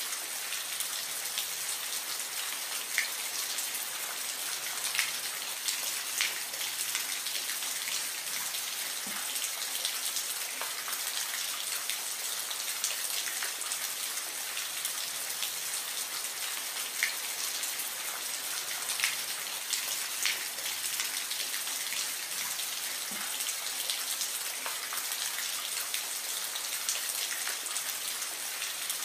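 Soft rain falling steadily, an even hiss with scattered sharp ticks of single drops landing close by.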